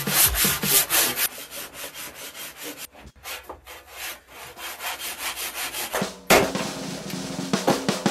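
Handsaw cutting across a large log, repeated push-pull strokes rasping through the wood. About six seconds in, a low steady tone joins the sawing.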